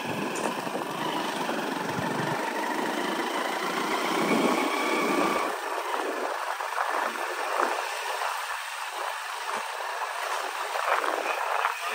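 A two-wheeler riding along a rough dirt lane: steady motor and road noise. There are faint whining tones in the first half, and short knocks and rattles from bumps in the second half.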